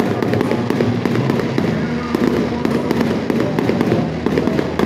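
Aerial fireworks display going off in a rapid, continuous barrage of bangs.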